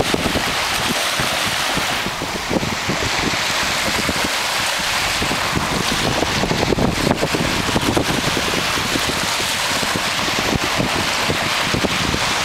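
Steady wind buffeting the microphone, with small waves lapping on a lakeshore beneath it.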